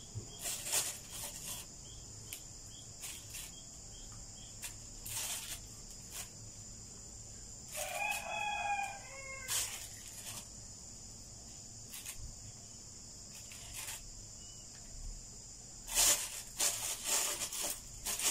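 A rooster crows once, about eight seconds in, over a steady chirring of crickets. Short knocks and splashes come now and then, in a cluster near the end, as chicken pieces go into the pot of simmering broth.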